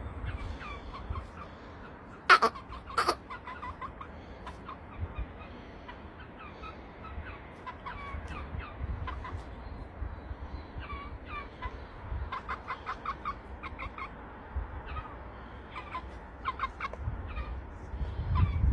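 Young Aseel chickens peeping in many short, falling chirps, with two sharp, loud sounds a little over two seconds in. A low rumble comes near the end.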